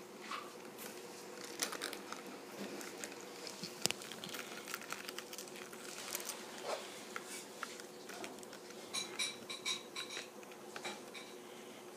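Light scattered clicks and scratches of two crayfish's claws and legs on a thin plastic tray as they grapple, with a quick run of clicks about nine seconds in. A faint steady hum sits underneath.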